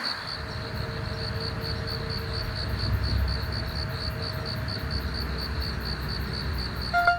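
Cricket chirping in an even rhythm, about four to five high chirps a second, over a low rumble. A plucked-string tune comes in right at the end.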